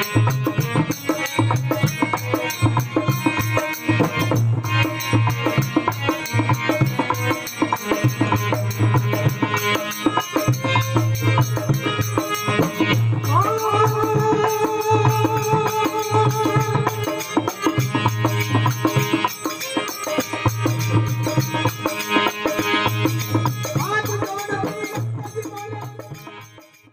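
Devotional folk music: a harmonium and a hand drum play a fast passage with a steady beat, and a bright ticking percussion runs on top. About halfway through, a long held note comes in for a few seconds. The music fades out at the very end.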